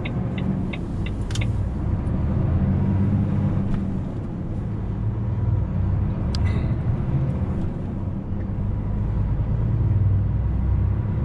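Truck's diesel engine running as heard inside the cab while the truck gets moving, its low rumble swelling and easing. A fast run of ticks in the first second and a half ends in a sharp click, and another sharp click comes about six and a half seconds in.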